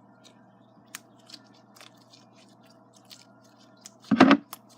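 Clear-glue slime being mixed and worked by hand in a bowl: faint sticky clicks and squishes, then one much louder squish about four seconds in.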